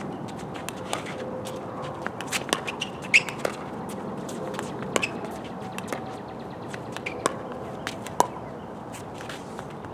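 Pickleball rally: a dozen or so sharp pops of paddles striking the hollow plastic ball, spaced irregularly, the loudest about three seconds in.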